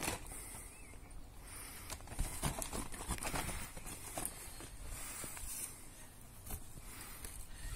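Soft, irregular rustling and crinkling of a clear plastic-mesh greenhouse cover as a cat steps and shifts about on it, with scattered small clicks.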